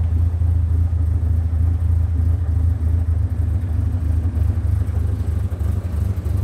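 1970 Morris Minor 1000's four-cylinder A-series engine idling steadily on the choke, a low, even running note; it is getting choked up, running rich with the choke out.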